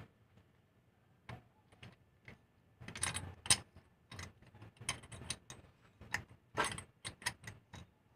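Metal hand tools and spark plugs clicking and scraping against metal in irregular short clinks, with a few longer scrapes about three seconds in and again near the seven-second mark, as the spark plugs are cleaned.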